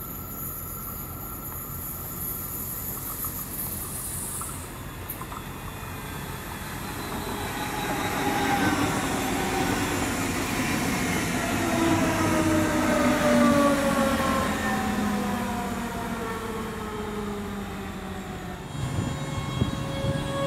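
DB Class 425 electric multiple unit passing close by, its traction motors whining in several tones that fall slowly in pitch, loudest as the train goes past. Near the end another Class 425 starts up, its whine beginning to rise in pitch.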